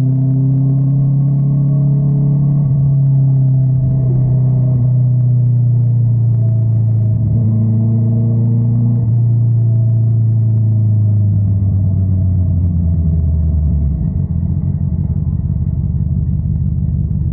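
Honda CBR650R's inline-four engine through an Akrapovic exhaust, running at a steady cruise with its pitch sagging slowly, then dropping to a lower, rougher rumble about three quarters of the way through as the engine speed falls.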